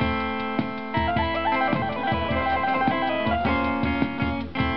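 Live acoustic music: a strummed acoustic guitar with a small handheld electronic keyboard playing a held, wavering melody over it.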